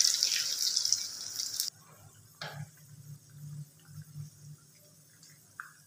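Breadcrumb-coated chicken balls sizzling loudly in hot oil, a steady hiss that cuts off abruptly under two seconds in. After that only a faint low hum with a few faint taps.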